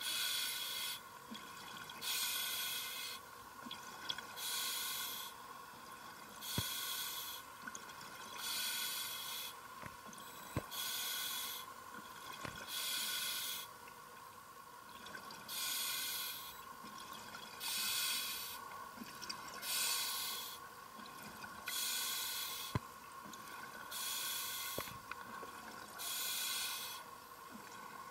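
Scuba diver breathing through an open-circuit regulator underwater: a bubbly hiss of exhaled air about every two seconds, with quieter gaps between breaths over a faint steady hum.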